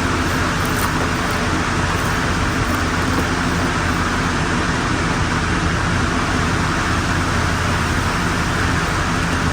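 Steady road and engine noise inside a moving van's cabin: an even rushing hiss over a low, constant drone.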